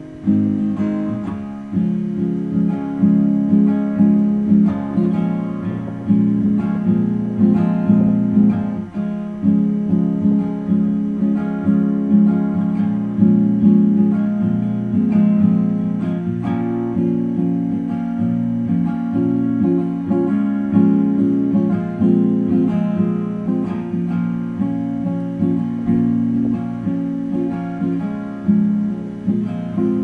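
Background music on acoustic guitar: plucked notes and chords, each struck sharply and ringing away, one after another in a steady rhythm.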